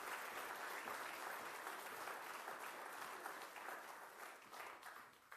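Audience applauding, steady at first and dying away toward the end, with a few last scattered claps.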